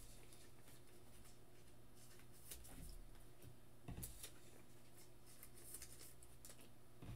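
Near silence with a few faint rustles and taps of baseball trading cards being slid and laid down on a table, the clearest about two and a half and four seconds in.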